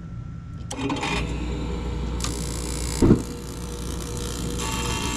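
Old Carrier gas pack's furnace starting up. A low motor hum sets in about a second in (the draft inducer), then a short hiss and a loud whoomp as the gas burners light about three seconds in, followed by the burners running. The burners light with a lot of flame rollout.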